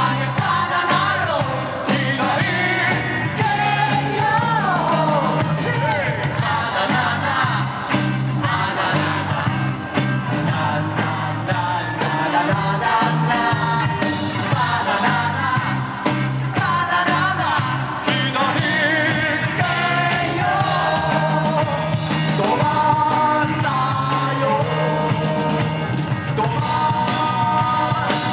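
A rock band playing live, with a sung lead vocal over electric guitar, drums and keyboard.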